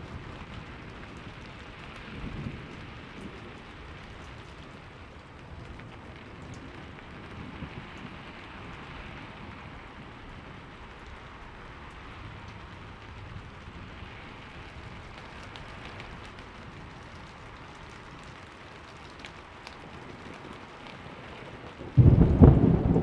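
Steady heavy rain with low, distant thunder rumbling, then a loud clap of thunder that starts suddenly near the end.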